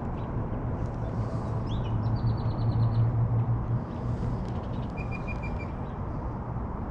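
Outdoor ambience by an urban canal: a low rumble swells and fades in the middle, with short rapid bird trills above it, one near the middle and another later.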